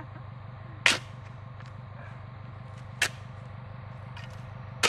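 Three sharp cracks about two seconds apart, the first the loudest, over a steady low hum.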